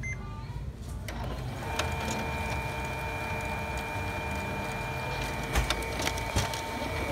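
HP Color LaserJet Pro MFP M177fw laser printer starting a copy job: its mechanism spins up about a second in and settles into a steady whine, with a few sharp clicks near the end.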